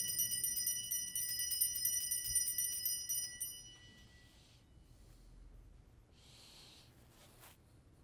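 Altar bells shaken in a rapid, steady jingle, marking the elevation of the chalice at the consecration; the ringing stops about three and a half seconds in and dies away.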